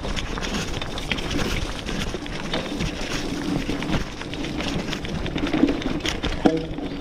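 B'Twin 520 mountain bike ridden along a bumpy dirt singletrack: steady rumble of tyres and wind on the microphone, with frequent rattling clicks and knocks from the bike over the rough ground. A short pitched squeal comes near the end.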